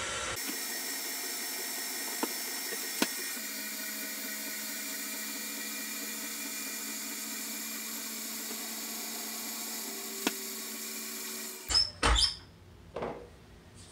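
Electric stand mixer running steadily on its lowest stir speed, the paddle mixing cake batter as water is poured in, with a few light clicks. The motor cuts off shortly before the end, followed by a few sharp knocks.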